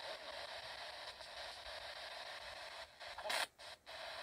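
Handheld spirit box scanning radio frequencies: a steady hiss of static, with a brief louder burst about three seconds in.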